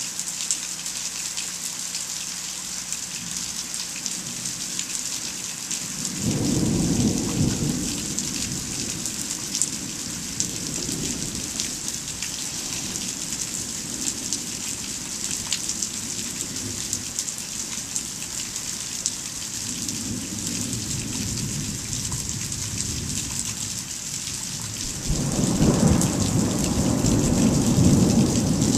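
Steady rain hissing down, with low thunder rumbling in about six seconds in and again, louder, near the end.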